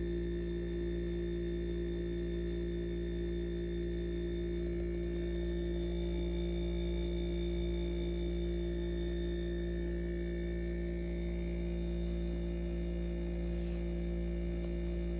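KUMIO compressor ice cream maker running mid-churn: a steady electric hum from its compressor and paddle motor.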